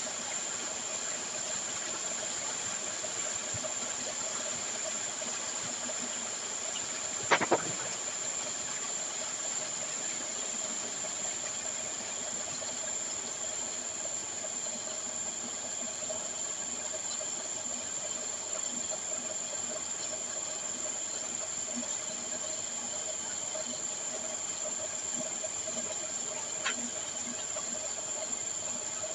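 Steady hissing rush of ore slurry pouring from pipes into filter bags in a settling pit, with a constant high-pitched tone over it. There is one sharp knock about seven seconds in and a light click near the end.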